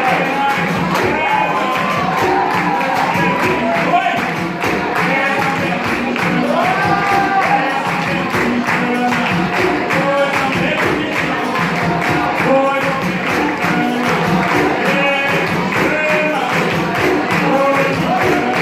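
Capoeira roda music: group singing over steady percussion, with the jingling of a pandeiro.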